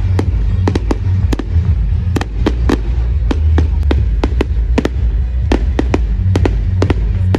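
Fireworks going off in a rapid, irregular run of sharp bangs and crackles, about two or three a second, over music with a heavy low bass.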